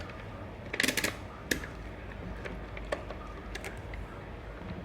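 A few sharp plastic clicks, a quick cluster about a second in and single clicks after: a multimeter being handled and its rotary selector turned to continuity mode.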